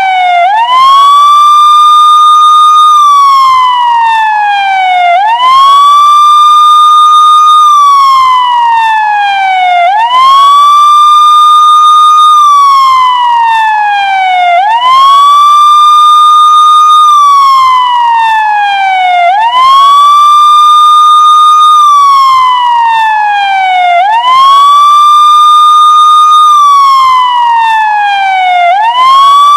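Police car siren wailing steadily and loudly. Each cycle rises quickly, holds its high note for about two seconds, then falls slowly, repeating about every four and a half seconds.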